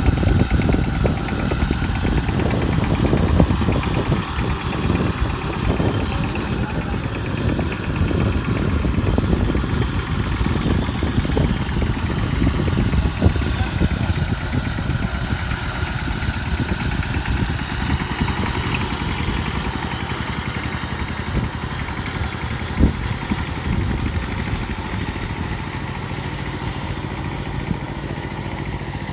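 Single-cylinder engine of a two-wheel walking tractor (power tiller) running steadily with a fast low chugging. It grows a little fainter near the end.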